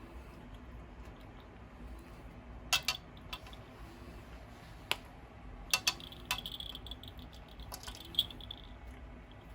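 A pet crunching dry kibble: a scatter of sharp crunches and clicks, bunched in the middle seconds, over a steady low hum from a ventilation fan.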